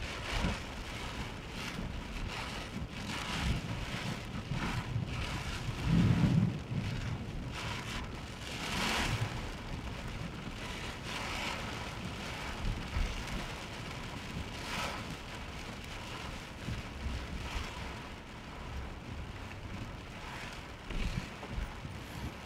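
Heavy rain on a moving car, heard inside the car: a steady wash of rain and wet-road tyre noise that swells and fades irregularly, with one louder low thump about six seconds in.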